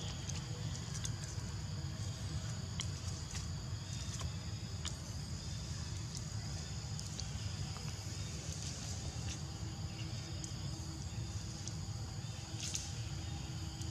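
Outdoor ambience: a steady high insect drone over a low rumble, with scattered short clicks and snaps.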